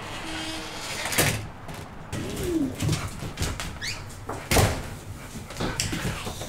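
A house door opening and shutting, with latch clicks and knocks. The loudest knock comes about four and a half seconds in. A dog gives a short whine about two and a half seconds in.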